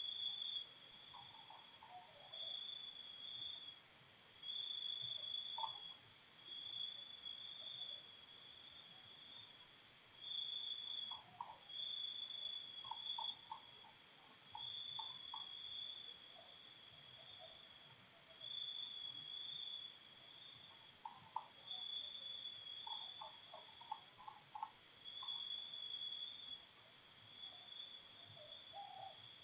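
Faint insects chirping: a high trill that comes in bursts of about a second, repeating steadily over a constant high buzz, with short quick groups of three or four chirps now and then.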